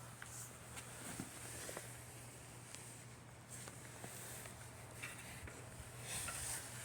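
Faint scattered clicks and light taps over a steady low hum and hiss.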